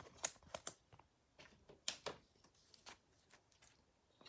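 Faint, irregular clicks and light scrapes of a trading card being handled and slid into a rigid clear plastic top loader.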